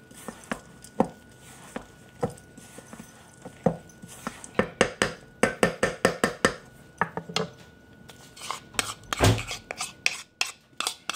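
Wooden spoon stirring a dry oat-and-flour mixture in a stainless steel bowl, knocking and scraping against the metal sides: spaced knocks about every half second at first, then quicker, denser scraping from about four seconds in, with a dull thump near the end.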